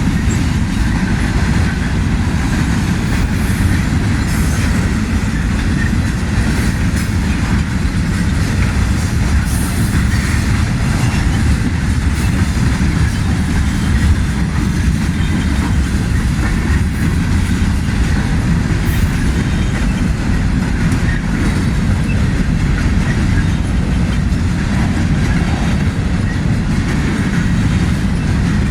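Slow-moving manifest freight train rolling past, its cars' wheels making a steady rumble on the rails.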